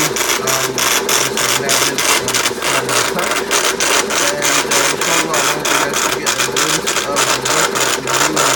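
Index Everest-D V4 braille embosser at work embossing braille pages: a fast, even hammering of strikes, several a second, over a low motor hum.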